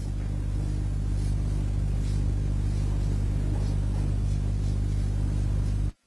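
A steady low electrical hum with a buzzy edge, cutting off abruptly near the end.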